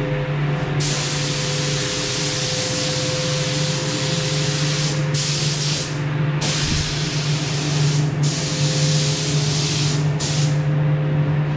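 Air spray gun hissing as it lays a clear lacquer coat on a bike frame, sprayed in passes: the hiss starts about a second in, breaks off briefly four times as the trigger is released, and stops shortly before the end. A steady low hum runs underneath.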